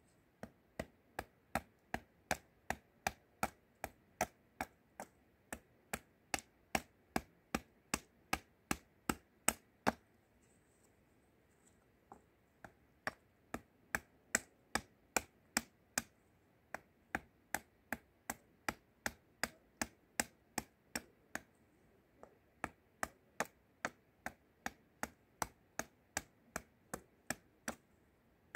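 Small hatchet chopping a spoon blank held upright on a wooden block: quick, steady strikes of the blade into the wood, about two to three a second, with a brief pause about ten seconds in.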